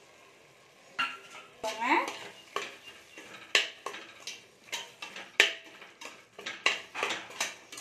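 A metal spoon stirring and scraping a thick onion-and-spice masala against the side of a steel pressure cooker pot. It begins about a second in with repeated sharp scrapes and clinks of metal on metal.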